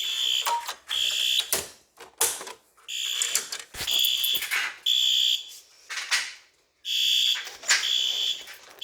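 Fire alarm horn sounding the temporal-3 evacuation pattern: three short high-pitched beeps about a second apart, a pause, then three more, with sharp clicks and knocks in between. It is the alarm set off by the pulled pull stations, still sounding until the system is reset.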